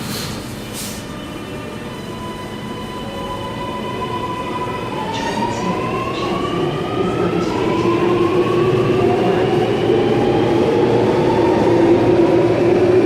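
Sydney Metro Alstom Metropolis driverless train accelerating, its traction motors whining in several tones that rise in pitch in steps as it speeds up, growing louder over a steady rolling rumble.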